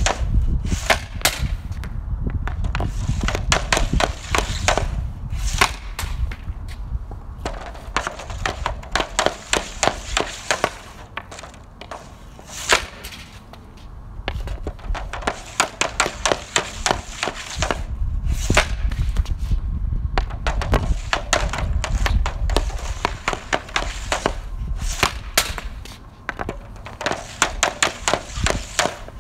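Bauer Vapor 1X hockey stick blade clacking pucks on a plastic shooting pad: clusters of quick stickhandling taps, each followed by the sharp crack of a shot, over and over.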